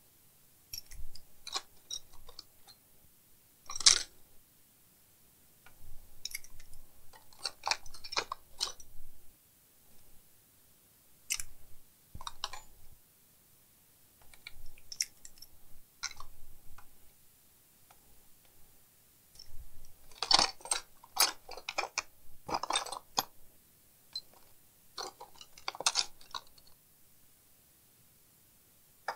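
Small precision screwdrivers clicking and clattering against each other as they are picked up and handled, in short irregular bursts with quiet gaps between.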